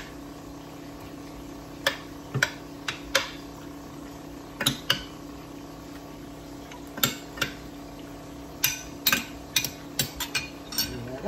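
Scattered light clinks and taps of food pieces and fingers against a glass baking dish as pork and vegetables are arranged in it, coming more often near the end. A steady low hum runs underneath.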